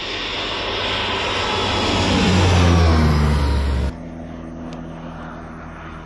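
Crop-spraying airplane's engine and propeller passing low overhead, growing louder and dropping in pitch as it goes by, loudest a little before three seconds in. The sound cuts off abruptly about four seconds in, leaving a fainter steady engine drone.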